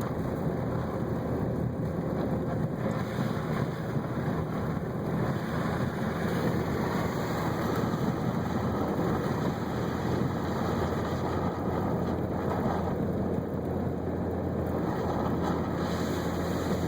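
Jeep Grand Cherokee ZJ driving through heavy, slushy snow in four-wheel drive: the 4.0 straight-six running steadily under the even rush of tyres and wind, heard from inside the cabin.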